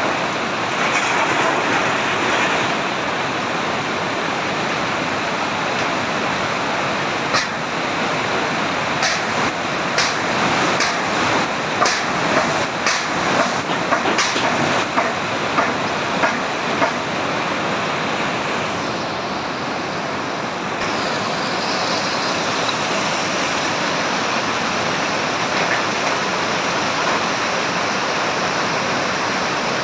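Muddy river floodwater rushing steadily in a torrent, with a run of sharp knocks in the middle stretch.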